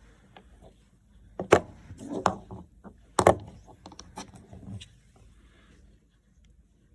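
Metal sockets being handled and set down on a hard surface: a few separate sharp clinks and knocks, the loudest about three seconds in.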